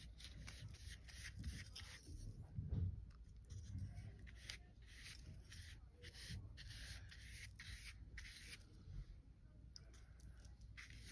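Faint, repeated scratchy rubbing strokes, a few each second: water being brushed onto the back of a stretched canvas to tighten the loose fabric. A soft bump sounds about three seconds in.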